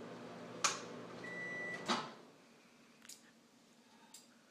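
Microwave oven running with a low hum: a click, then one steady high beep lasting under a second, then a louder click as the door opens and the hum stops about halfway through. A few faint clicks follow.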